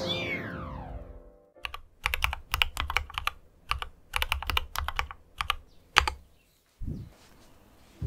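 A quick run of keystrokes on a mechanical keyboard, about twenty presses over four seconds, ending with one louder strike. Before it, music with a falling tone fades out.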